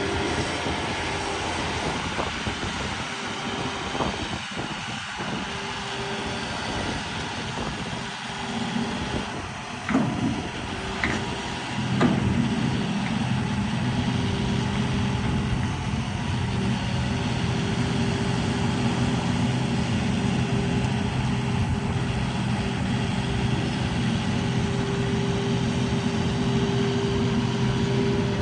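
2012 John Deere 250G excavator's diesel engine running steadily, with a few sharp knocks about ten to twelve seconds in. After the knocks the engine note deepens and runs louder.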